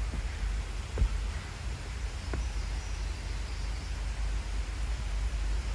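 A few footsteps knocking on a trail, about a second and two and a half seconds in, over a steady rushing hiss. Low wind rumble buffets the microphone throughout.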